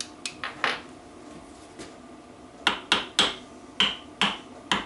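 Light hammer taps on metal, nudging a crankshaft part into alignment: a few small taps within the first second, then six sharper, ringing taps about every half second over the last two seconds.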